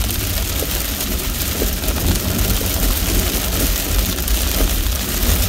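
Rain on a moving car and tyres hissing on the wet road, heard from inside the cabin, over a steady deep rumble.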